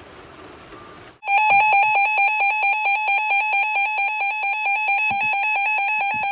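A steady hiss, then about a second in the Emergency Alert System attention tone cuts in: a loud, harsh, rapidly pulsing alert tone that heralds a new severe thunderstorm warning.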